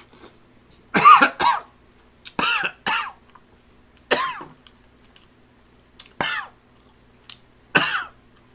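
A man coughing repeatedly while eating, about seven short coughs spread over several seconds, the first ones in a quick pair.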